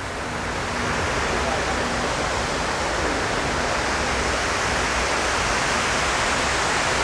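Water cascading down the walls of the 9/11 Memorial's reflecting pool: a steady rushing waterfall, growing a little louder in the first second.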